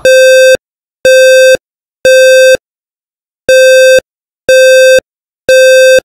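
Lifetone HL-150 bedside fire alarm clock sounding its low-pitched, buzzy alarm tone in the temporal-three pattern: three half-second beeps a second apart, a pause, then three more. This is the standard fire evacuation signal.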